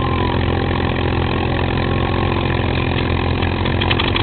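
A WWII fighter's V12 piston aero engine running steadily after start-up, a constant low, even drone.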